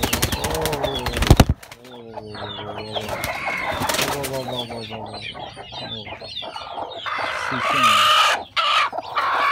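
Chickens clucking and calling, with many short high chirps mixed in. A loud burst of rustling opens it and stops about a second and a half in.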